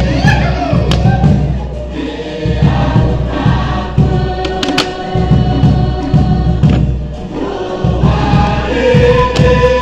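A group of voices singing a Pukapukan song together over a fast drum rhythm, with the drums briefly dropping out twice.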